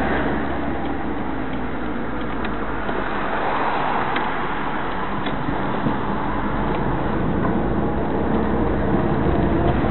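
Inside a moving car: steady engine and road noise. It eases around the middle as the car slows to turn a corner, then builds again as it drives on.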